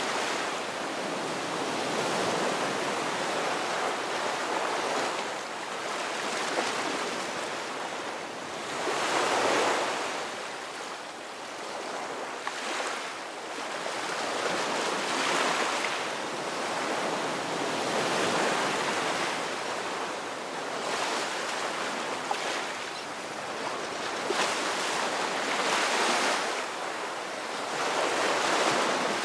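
Gentle surf breaking on a sandy beach: waves wash in and recede, the hiss swelling and fading every several seconds.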